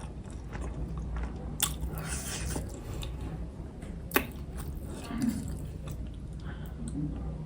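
Close-up chewing of momo dumplings, with wet, irregular mouth sounds and two sharp clicks, one about a second and a half in and another about four seconds in.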